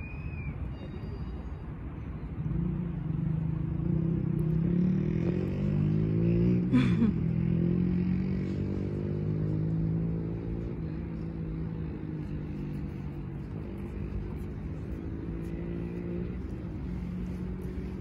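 An engine running, with a low drone that grows louder a few seconds in and shifts in pitch. It is loudest about seven seconds in, where a sharp click is heard, then carries on more steadily.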